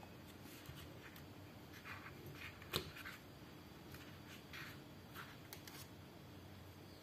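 Ceramic-coated knives handled in their moulded plastic box tray, lifted out by hand: faint scrapes and rustles with a few light clicks, and one sharper click a little under three seconds in.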